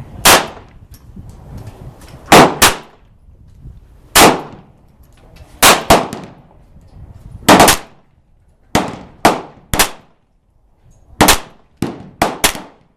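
About a dozen shots from a GSG 1911 .22 pistol, fired one at a time with irregular pauses of half a second to two seconds between them.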